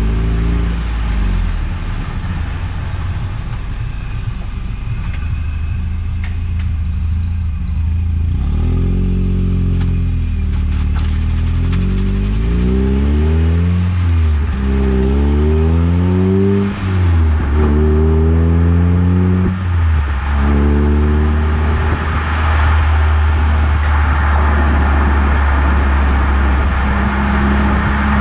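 Eunos Roadster's four-cylinder engine under way. Around the middle the revs climb and drop sharply several times as it is shifted up through the gears, then it settles to a steady cruise.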